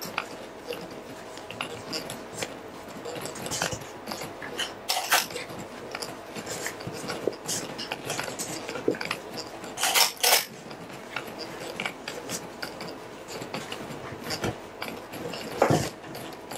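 A hand working soft dough in a stainless steel pot: irregular clinks and knocks against the metal, with a few louder knocks.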